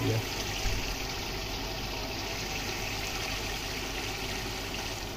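Chicken pieces with whole spices sizzling and bubbling in oil and their own juices in a large aluminium pot: a steady frying hiss.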